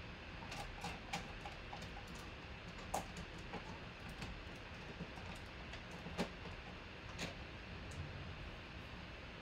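Steady background hiss with a handful of scattered light clicks and ticks, the sharpest about three and six seconds in.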